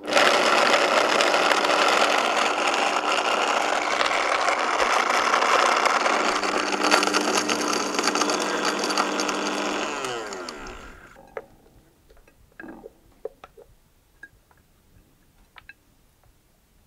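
Vitamix blender grinding a thick, nearly dry mixture of almonds, oats, chia seeds, cocoa, oil and maple syrup; it runs steadily for about ten seconds, then is switched off and spins down with a falling whine. Afterwards there are faint clicks and scrapes of a spatula scraping the mixture out of the jar.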